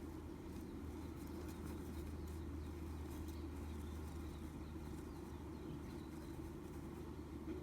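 Steady low hum with faint, scattered light clicks and scratches in the first few seconds.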